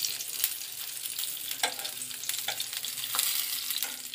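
Stuffed baby eggplants sizzling in oil in a nonstick pan, with a steady hiss throughout. About six sharp clicks and taps of metal tongs on the pan come as the eggplants are turned over.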